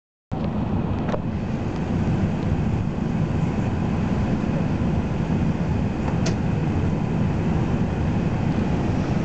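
Steady low rumble of an Airbus A380's cabin in flight on descent, heard at a window seat over the wing: engine and airflow noise, starting abruptly just after the start, with a couple of faint clicks.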